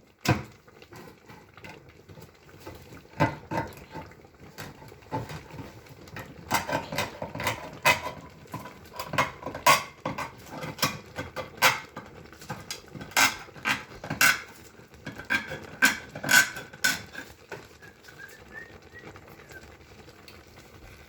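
Kitchen clatter: irregular sharp metallic clicks and knocks as a can of diced tomatoes is opened and tipped into the stew pot, thickest through the middle of the stretch.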